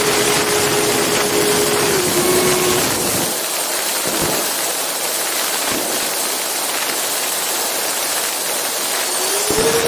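Onboard sound of a radio-controlled model jet's electric ducted fan. A steady whine drops in pitch and fades out about three seconds in as the throttle is cut, leaving the rush of air over the model as it glides low. Near the end the whine comes back, rising in pitch as the throttle is opened again.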